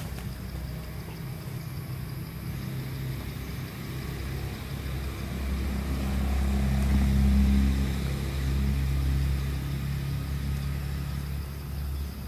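A motor engine running with a steady low hum, growing louder about halfway through and then easing off.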